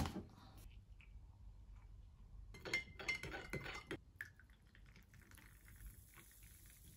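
Faint clinking of a spoon against a cup and other crockery while a chai latte is made, with one sharp knock at the very start and a short run of ringing clinks about three seconds in.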